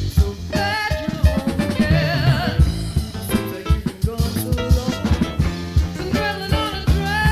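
A band of drum kit, bass guitar and keyboards playing an upbeat song, with frequent drum hits and a wavering melody line about two seconds in.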